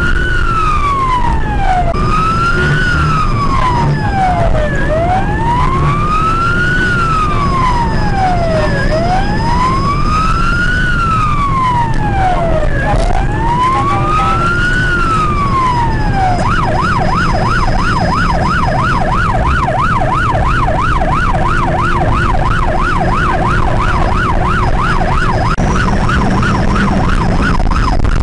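Police car siren wailing in slow rises and falls of about four seconds each, switching a little past halfway to a rapid yelp, over steady engine and road noise from a fast-moving car.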